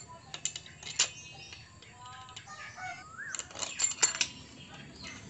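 Sharp metallic clinks and taps of tools and engine parts being handled, one about a second in and a quick cluster in the second half, with birds chirping in the background.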